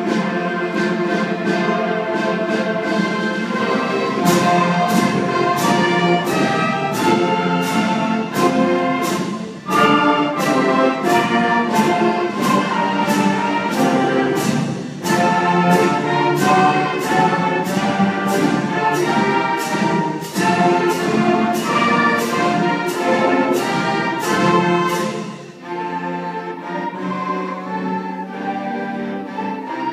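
Student concert band of woodwinds, brass and string bass playing a lively piece, with a percussion beat about twice a second from about four seconds in. Near the end the beat stops and the music thins out and softens.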